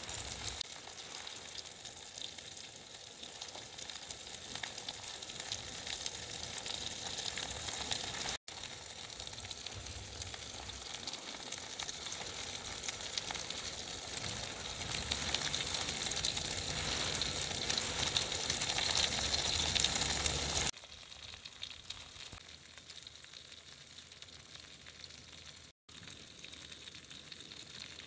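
Lamb chops and garlic cloves sizzling in fat on a hot griddle pan, a dense crackling hiss that builds through the middle. About two-thirds of the way in the sound drops abruptly to a softer level.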